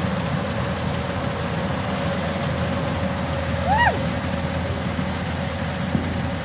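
Kubota DC-105X combine harvester running under load as it cuts rice: a steady diesel machine drone with a faint steady whine above it. A brief rising-and-falling call cuts in about four seconds in.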